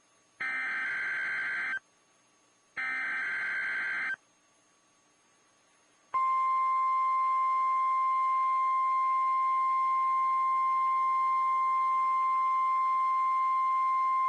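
NOAA Weather Radio alert signal: two harsh digital data bursts of the SAME header, about a second apart, then after a pause of about two seconds the steady 1050 Hz National Weather Service warning alarm tone.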